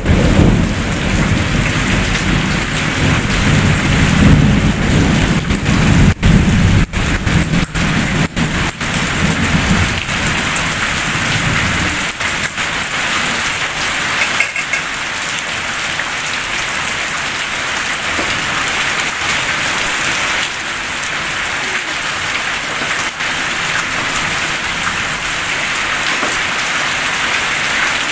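Heavy rain pouring steadily onto clay roof tiles and a waterlogged yard. A long low roll of thunder rumbles for about the first twelve seconds, then dies away and leaves only the rain.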